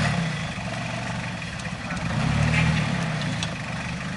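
Rock-crawling 4x4's engine running at low revs as it picks its way over boulders, with a brief rise in revs about two seconds in.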